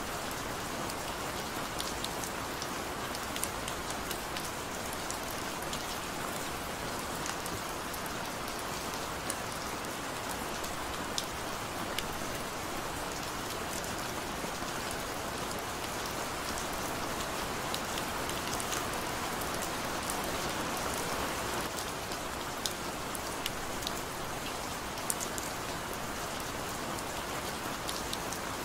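Steady gentle rain: an even hiss of falling rain dotted with scattered sharp drop ticks.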